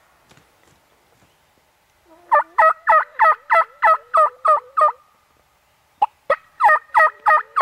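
Turkey yelping: a run of about nine loud, evenly spaced yelps at roughly three a second, each note dropping in pitch. A second run starts after a short pause.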